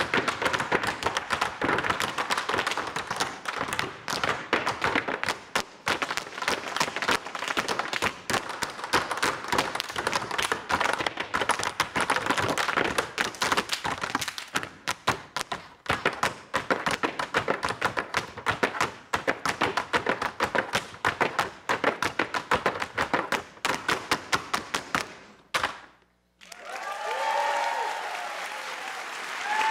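Tap shoes of several dancers striking wooden tap boards in fast, rhythmic unison footwork, which stops suddenly about 26 seconds in. After a brief pause the audience applauds and cheers with whoops.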